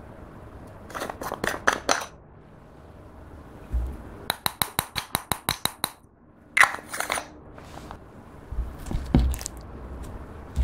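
Small plastic cosmetic powder jar being handled: clicks as the lid comes off, then a quick run of about a dozen even taps as the loose highlighter powder is tapped out, and a sharp clack as the jar is set down. Near the end, soft low thuds of clear slime being pressed against a wooden table.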